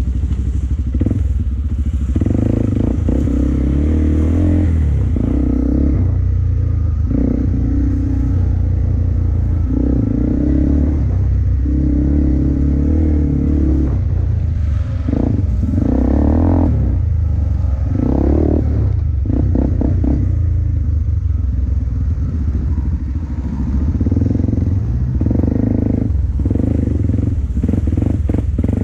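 An off-road vehicle's engine running with a steady low rumble, the throttle rising and easing off repeatedly, with some clatter.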